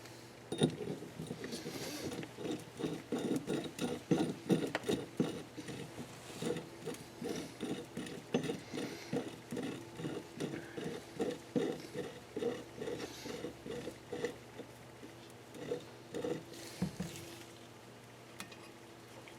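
Hand tool being worked in quick repeated strokes, about three a second, giving a rhythmic mechanical ratcheting during cylinder head assembly. It stops about three-quarters of the way in, and a few more strokes follow shortly after.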